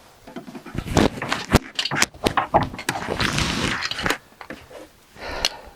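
A run of sharp knocks and scraping from about a second in to about four seconds, then a shorter scrape near the end: a wooden workshop trolley being handled and set down on its four new caster wheels.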